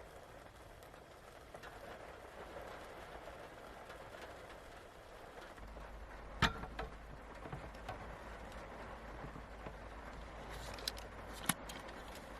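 Steady rain falling, with a few sharp clicks: the loudest about halfway through and another couple near the end.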